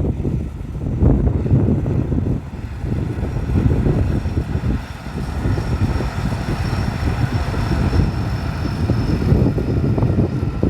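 Combine harvester engine running steadily, with wind buffeting the microphone.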